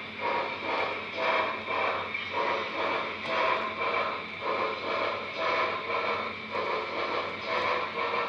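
Model railroad freight cars rolling past on the track, a steady running clatter that swells and fades in a regular rhythm about once a second.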